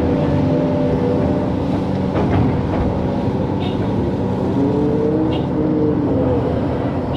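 Excavator's diesel engine running steadily as the machine works, its hum shifting briefly up and down in pitch a little past the middle.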